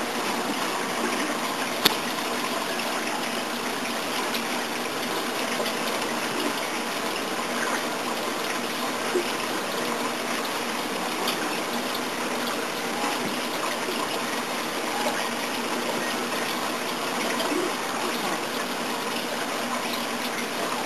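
Steady rush and trickle of circulating water in a saltwater reef aquarium, with one sharp click about two seconds in.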